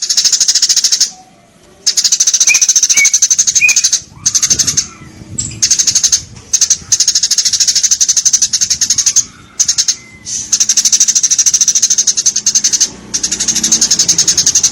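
Eurasian tree sparrow chattering: long runs of rapid, high-pitched chirps repeated in quick succession, broken by short pauses of under a second.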